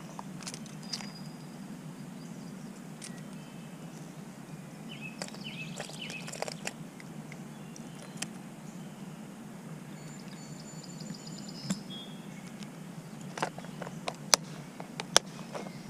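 Plastic tackle box and fishing lures being handled, giving scattered light clicks and rattles that come more often near the end, over a steady low outdoor background with a few faint high chirps.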